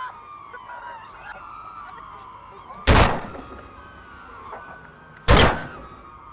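Two loud gunshots about two and a half seconds apart, each trailing off briefly, over a background of indistinct voices.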